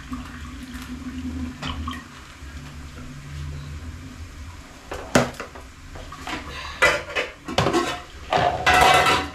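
Rice being rinsed at a stainless steel sink: rinse water is poured off into the sink. From about halfway in there are several sharp knocks of a plastic cup and basin against the sink, and a louder splash of water lasting about a second near the end.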